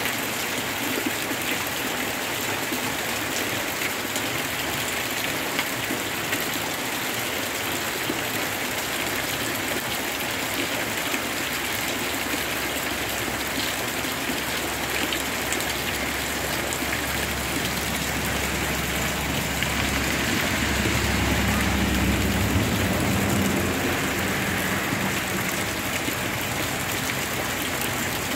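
Heavy tropical rain falling steadily on floodwater, foliage and the ground, a dense even hiss. A low rumble swells in the second half, strongest about twenty seconds in.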